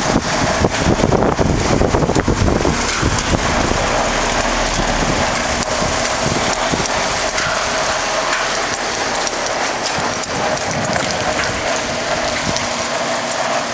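Outdoor unit of a 2011 Broan 3-ton heat pump running steadily in heating mode, its Copeland scroll compressor and fan making a steady hum with a held tone, under falling rain. A low rumble fills the first few seconds.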